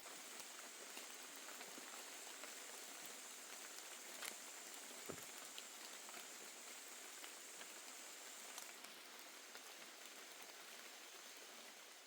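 Faint outdoor night ambience: an even hiss with a steady high-pitched drone that stops about two-thirds of the way through, and a few soft ticks.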